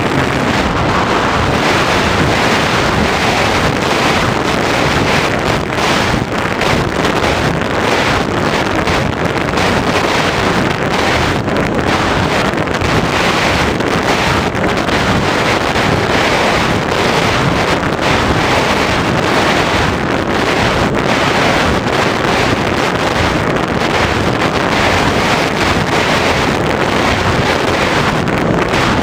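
Airflow rushing over the microphone of an RC glider's onboard camera in flight, a steady loud wind rush with the electric motor silent. The glider is gliding unpowered.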